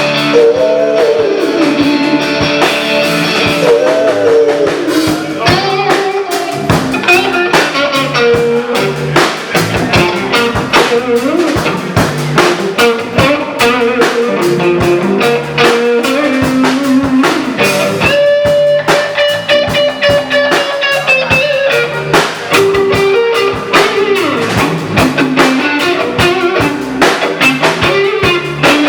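Live rock band playing an instrumental break: guitar lead over drum kit and bass, with sliding, bending guitar notes in the first few seconds.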